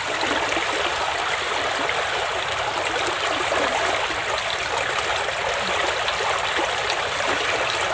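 Shallow muddy stream water running steadily, an even rushing and trickling.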